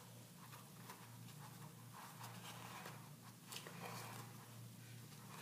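Very faint handling sounds, small soft rustles and dabs, of hands working a wet white material beside a plastic bowl of water, over a low steady hum.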